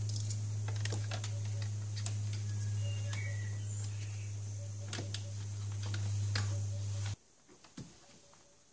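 Small clicks and rustles of a cable being pushed through the plastic radio bay of a car dashboard, over a steady low hum that cuts off abruptly about seven seconds in.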